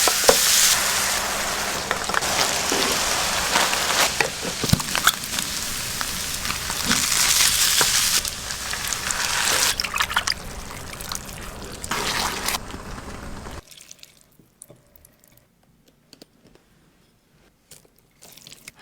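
Wet, hissing liquid sounds of someone eating or drinking close to the microphone, with scattered small clicks, that stop suddenly about 13 seconds in, leaving only faint soft clicks.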